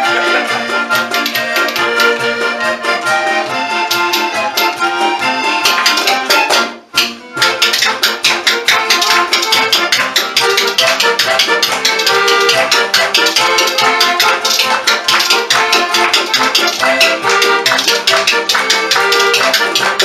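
A polka played on an accordion, with a pair of spoons clacked in a fast, steady rhythm against it. The music drops out briefly about seven seconds in.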